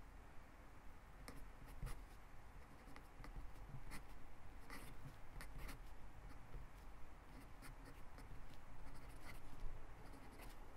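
Quiet scratching of a fine-tipped pen on lined notebook paper, a run of short, irregular strokes as a name is written out in cursive.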